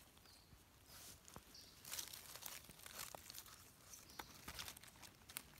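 Faint rustling and crackling of dry leaf litter with scattered light clicks, as hands pull a red mushroom out of the forest floor.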